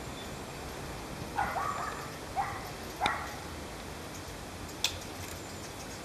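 Three short animal calls close together, a little after a second in, then a single sharp click near the end, over steady outdoor background noise.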